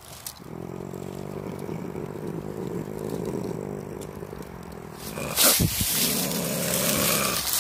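Virginia opossum growling low and steadily at close range, a sign it is agitated and on the defensive. About five seconds in comes a sudden loud burst of noise that runs on to the end.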